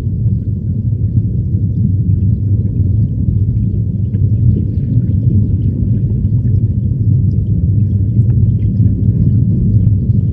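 Muffled, steady low rumble of flowing stream water heard through a camera held underwater, with faint scattered ticks above it.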